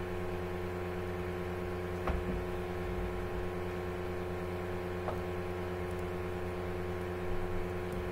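Steady electrical hum, a buzz made of several steady tones at once, with two faint clicks about two and five seconds in.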